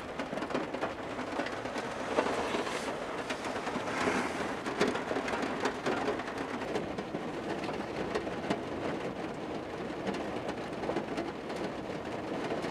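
Steady rain falling on a parked Jeep, heard from inside the vehicle: a continuous hiss of rain made up of many small drop hits on the glass and body.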